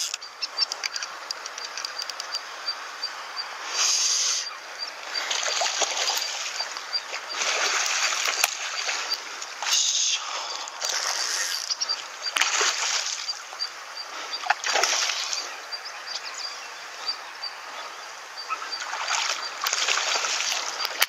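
A hooked sea bass splashing and thrashing at the water's surface in repeated irregular bursts as it is reeled in on a spinning rod, with a faint rapid ticking underneath.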